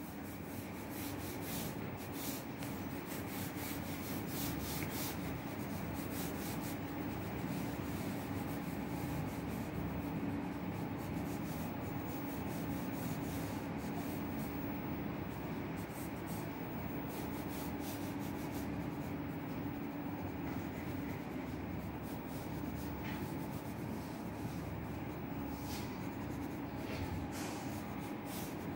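Graphite pencil scratching over drawing paper in short, irregular strokes, over a steady low background hum.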